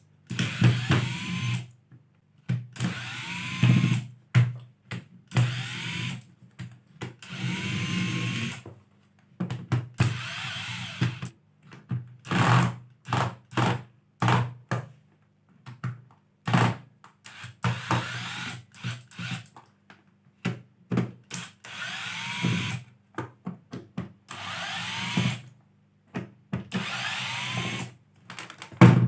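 Hoki 802 electric screwdriver running in reverse at its lowest speed, backing out screws in repeated short runs of a second or so. Many runs start with a rising whine as the motor spins up, and short clicks fall between the runs.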